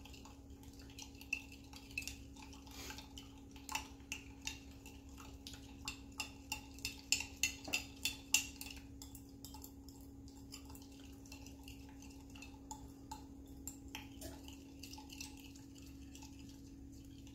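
Metal spoon stirring dye in a glass mason jar, with light irregular clinks and taps of the spoon against the glass that come thickest in the middle and thin out toward the end: black fiber-reactive dye powder being mixed with a little hot water to dissolve it. A steady low hum runs underneath.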